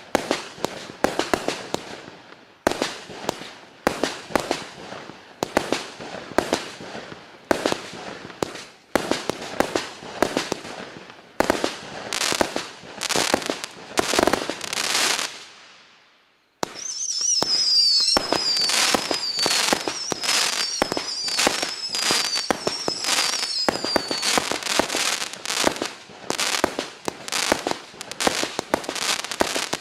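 A 192-shot consumer fireworks cake firing. Shots with crackling tails come about once a second, then stop briefly just past the middle. The barrage resumes as a dense, rapid volley with a high wavering whistle for several seconds.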